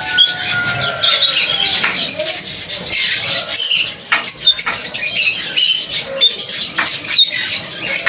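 Many caged birds chirping and chattering together in a dense, continuous chorus of short high calls, with one long, slightly falling whistled note at the start and a few scattered clicks.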